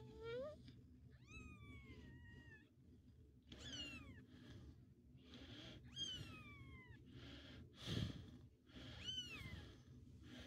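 A newborn kitten mewing four times, thin and high-pitched, each mew falling in pitch. There is a soft rustle of handling about eight seconds in.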